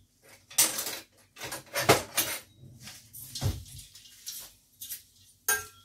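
Metal kitchen utensils clinking as a ladle is picked out of a drawer of spoons and ladles, then a metal ladle knocking and scraping in a stainless-steel cooking pot while stirring. A string of separate clinks and knocks.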